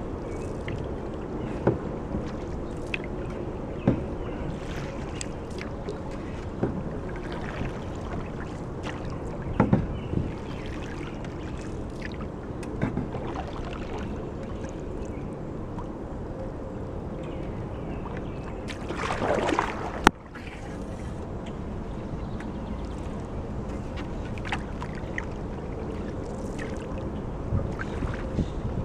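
Canoe being paddled: paddle strokes in the water with scattered light knocks over a steady background noise. About two-thirds through, a louder rushing swell ends in a sharp click.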